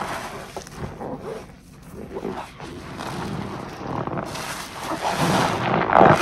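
Soapy sponge squeezed in thick dish-soap foam by a gloved hand: wet squelching and crackling of suds, growing louder from about four seconds in to a loud squish near the end.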